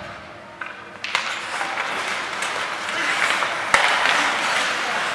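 Spectators applauding, starting about a second in, with one sharp knock near the middle.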